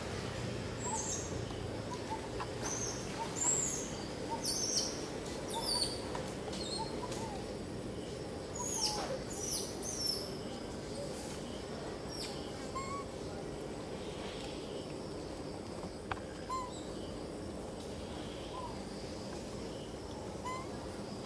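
Birds chirping: quick high whistles that fall in pitch, coming thickly for the first half and thinning out after that, with a few fainter short peeps in between.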